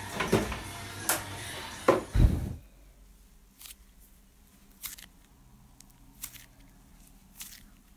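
Slime being handled: a run of sharp sticky clicks and a thump about two seconds in. The sound then drops suddenly to quiet, and green slime squeezed in a fist gives faint clicking squelches about once a second.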